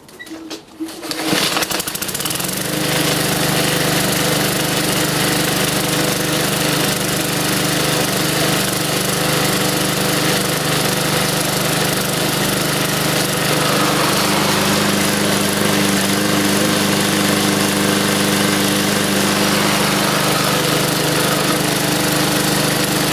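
Briggs & Stratton single-cylinder petrol lawnmower engine pull-started, catching about a second in, then running nice and even at a steady speed. This shows it is no longer revving up and down now that the sheared flywheel key has been replaced.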